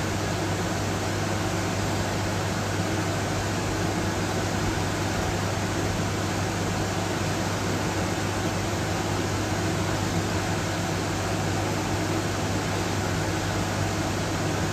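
Steady rushing noise with a constant low hum, like a fan or air conditioner running, without change. No rise and fall of snoring breaths is heard.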